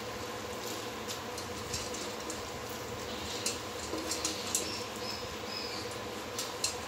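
Soaked rice being tipped by hand from a steel bowl into a pot of boiling water: a steady bubbling hiss with light, scattered ticks and scrapes as the grains slide out and drop in.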